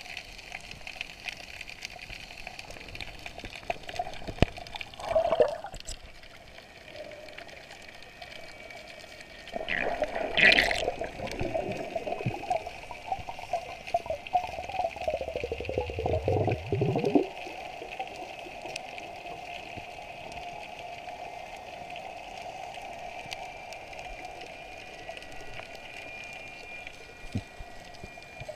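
Muffled underwater sound picked up by a submerged action camera: a steady wash of water with a faint steady hum and scattered clicks. About ten seconds in, a louder rush of water swells up, sinks in pitch and stops about seven seconds later.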